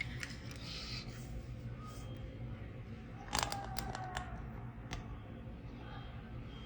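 A quick cluster of light metallic clicks and taps from a small hand tool working on a laptop motherboard, about three and a half seconds in, with one more click about a second later, over a low steady hum.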